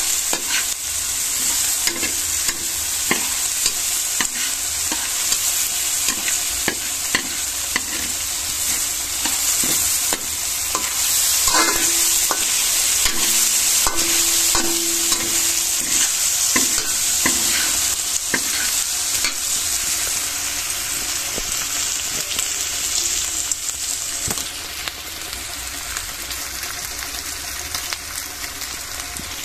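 Pork, garlic and onion sautéing in hot oil: a steady frying sizzle, with a spatula stirring and clicking against the pan. The sizzle eases a little near the end.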